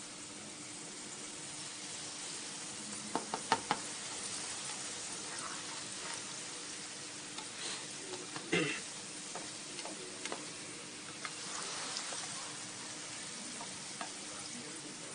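Hot oil sizzling in a nonstick frying pan, with a few sharp clicks about three seconds in. Just past halfway comes a louder burst of sizzle as raw meatballs go into the oil, then steady frying with small crackles.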